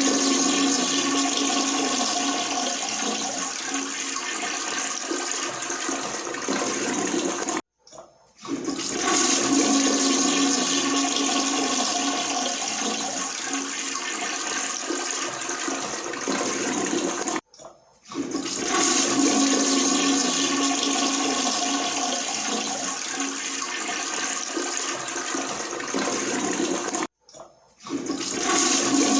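Toilet flushing: a loud rush of water, repeated flush after flush about every ten seconds, each cut off abruptly by a brief silence before the next begins.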